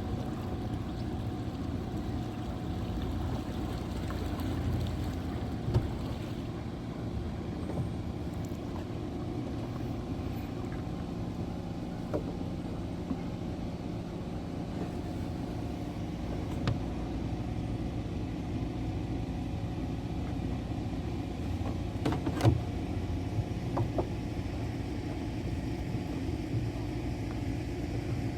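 Small boat's motor running steadily with a low rumble and a held hum, with a few light knocks now and then.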